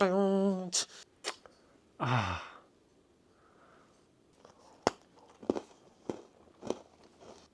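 A person's voice: a drawn-out voiced sound at the start, then a breathy sigh falling in pitch about two seconds in, followed by a few faint clicks about every half second.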